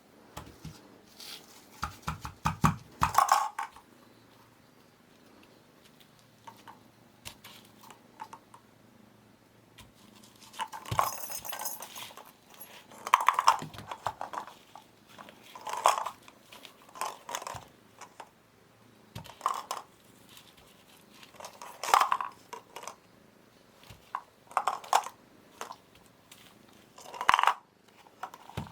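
A kitten chewing and crunching, in short bursts of crunches every two to three seconds.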